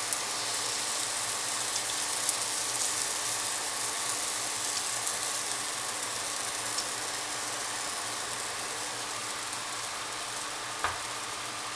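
Pancake batter sizzling in hot oil in a nonstick frying pan: a steady hiss with scattered small pops, and a single knock near the end.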